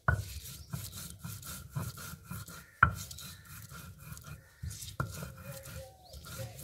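Round hand stone grinding red chillies on a flat stone slab (sil-batta), rubbing back and forth in repeated strokes on the wet paste. A few sharp knocks of the stone ring out, the loudest about three seconds in.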